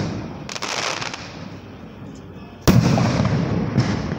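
Aerial firework shells bursting overhead: one sharp bang about two-thirds of the way in, followed by a long rumbling echo that slowly fades.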